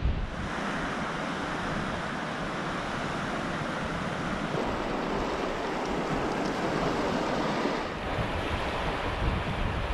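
Small waves breaking and washing onto a pebble beach, a steady surf hiss. Near the end, gusts of wind buffet the microphone.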